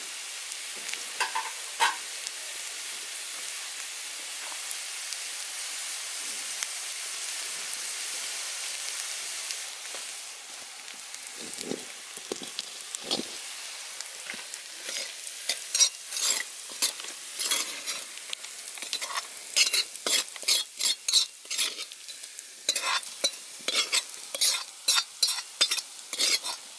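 Coconut, onion and curry leaves fried in oil sizzling in a hot metal wok. From about halfway, a metal ladle scrapes and taps quickly and repeatedly against the wok as the fried mixture is scraped out into the curry pot.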